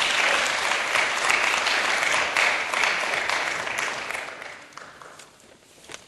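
Applause from lawmakers seated in a parliamentary chamber, dying away about four to five seconds in.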